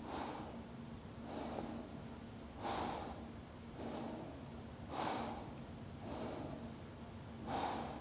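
A woman breathing slowly and deeply while holding a yoga balance pose, about three full in-and-out breaths, with a stronger breath roughly every two and a half seconds. A faint steady hum runs underneath.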